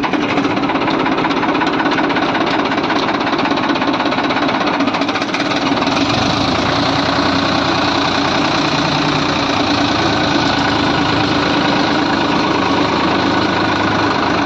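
Farmtrac 60 tractor's diesel engine running steadily; a deeper low note joins about six seconds in.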